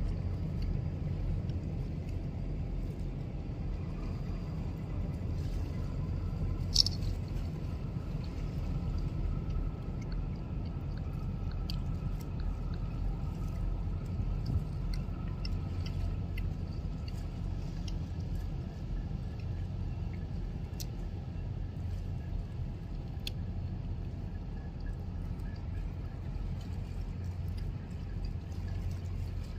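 A steady low rumble with a few faint clicks and one sharper click about seven seconds in.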